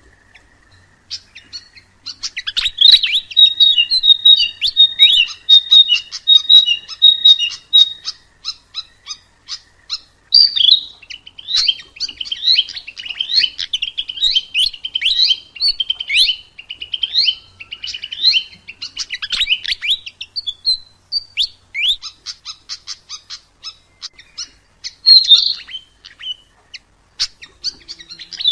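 Sikatan emas, a Ficedula flycatcher, singing a long, rapid run of high chirps, whistles and trills. The song starts about two seconds in and carries on almost without a break.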